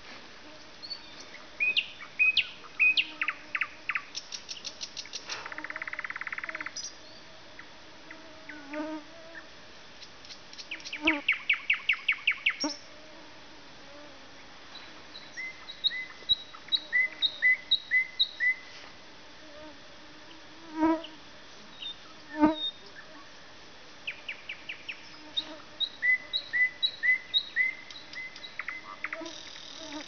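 Nightingale singing, in phrases separated by short pauses: rapid clicking trills, a buzzy rattle, and runs of repeated clear whistled notes. Two brief louder low sounds come a second or so apart past the middle.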